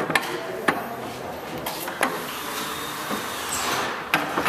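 Scattered sharp knocks and clacks of wood and tools being handled around a table saw, about five in all, with no motor running. A soft hiss swells briefly a little after halfway.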